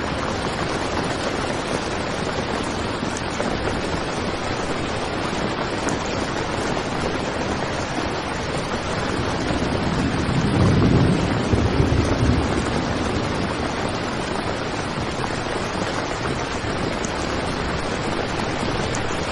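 Heavy rain falling on a tent, a steady dense hiss, with 8D panning effect for headphones. About ten seconds in, a low rumble swells for a couple of seconds and fades again.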